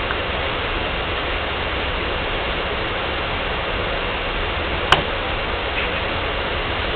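Steady, even hiss of background noise, with one sharp click about five seconds in.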